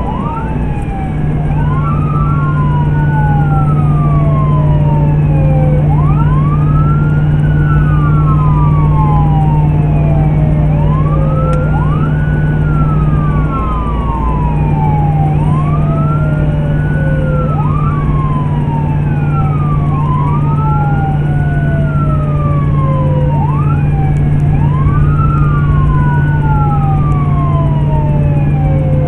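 Emergency vehicle's electronic siren in wail mode. It sweeps quickly up and then slowly down, about once every six seconds, heard from inside the cab over the steady drone of engine and road.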